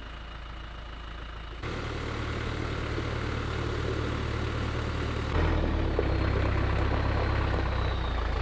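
An engine idling with a steady low hum, getting louder in two sudden steps, about a second and a half in and again about five seconds in.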